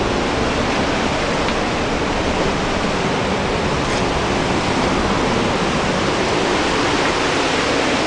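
The roar of the Pailón del Diablo waterfall: a loud, steady rush of falling water.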